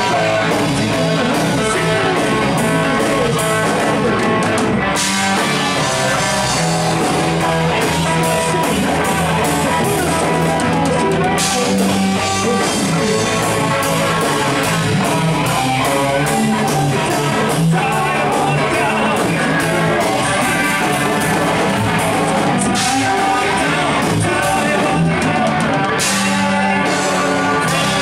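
Live rock band playing loud: distorted electric guitar over bass guitar and a drum kit, with drums and cymbals struck in a steady beat.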